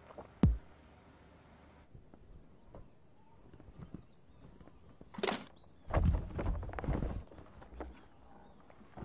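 A heavy thud about half a second in, then outdoor ambience with faint birds chirping. Near the end a sharp crack and about a second of loud scraping and knocking as a giant prop capsule's two halves are pushed apart.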